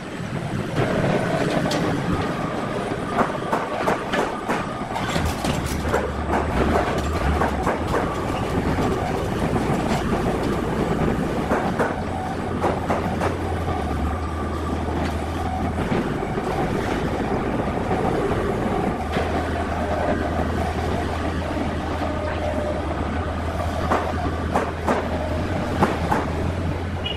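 Engine of a small flatbed crane truck running, with a low steady hum that comes in a few seconds in, under frequent clanks and rattles.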